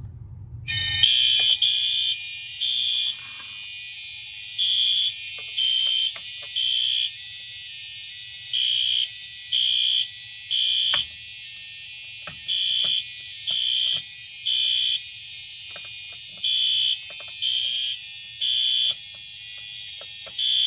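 Fire alarm system sounding after activation about a second in: high-pitched beeps in the temporal-three evacuation pattern, three beeps about a second apart and then a pause, repeating over a steady high tone.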